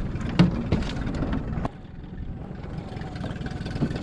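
Boat motor idling steadily, with a few sharp knocks and clatters in the first second and a half.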